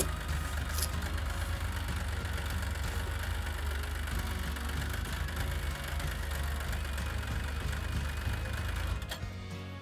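Snowmobile engine running at a steady low idle. The rumble stops abruptly near the end.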